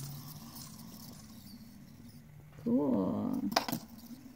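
Quiet room with a faint steady hum. About three seconds in there is a short voiced sound, then two sharp clicks as a hand touches a light-up fidget spinner on the wooden floor.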